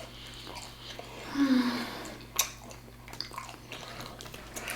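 Close-up mouth sounds of someone chewing food, with small wet clicks, and a short closed-mouth hum about a second and a half in.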